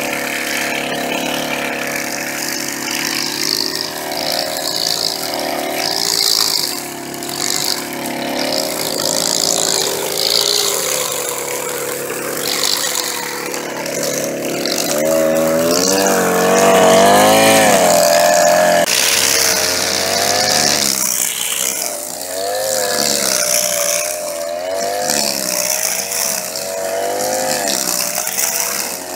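String trimmer's engine running while cutting grass, its speed rising and falling repeatedly, at its loudest and highest about 16 to 19 seconds in.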